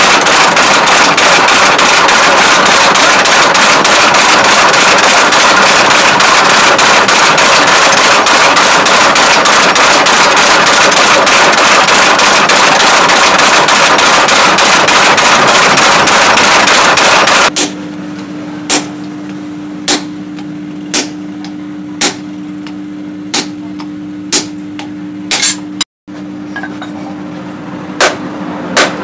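Mechanical power hammer pounding a glowing piece of rebar with rapid, continuous strikes, several a second. About two-thirds through this stops abruptly, and single hand-hammer blows on the hot steel on a post anvil follow, roughly one a second, over a steady low hum.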